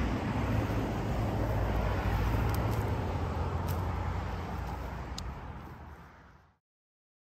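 A car passing on the road, its engine and tyre noise building and then slowly fading away, gone about six and a half seconds in.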